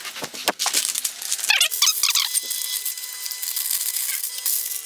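Sheet of tinted window film, peeled from a car, crinkling and crackling as it is handled and cut, with a dense run of sharp crackles and rustling.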